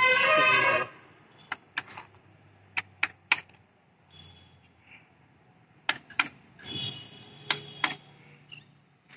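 A plastic engine-oil jug being handled and tipped to pour into an engine's oil filler: a series of sharp clicks and knocks, with a loud, pitched sound lasting about a second at the start and a shorter one about seven seconds in.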